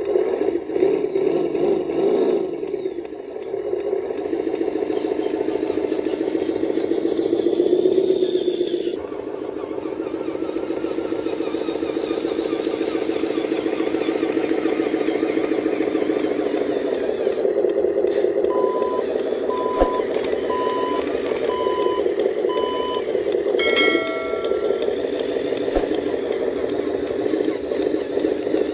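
Engine sound from the RC model trucks' sound module, running steadily like a diesel truck engine. About two-thirds of the way through comes a row of five short, evenly spaced electronic beeps, then a brief higher tone.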